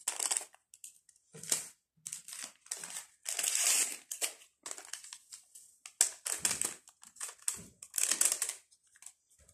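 Small paper sachets of Alsa baking powder being shaken out, crinkled and handled, in irregular rustling bursts.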